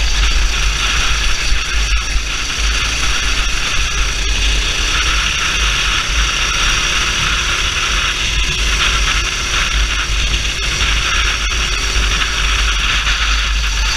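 Onboard sound of a kart at racing speed: wind buffeting the camera microphone with a steady loud rush and hiss, the kart's engine faintly heard underneath, its pitch shifting slowly with speed.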